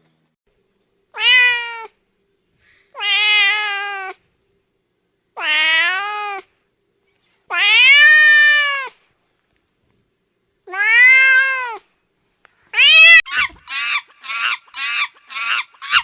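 Cat meowing: five separate drawn-out meows, each rising and falling in pitch, about two to three seconds apart, followed near the end by a quick run of short, rapid calls.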